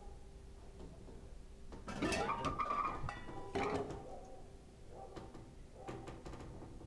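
Clattering knocks with a metallic, dish-like clink: two louder clatters about two and three and a half seconds in, then softer knocks near the end.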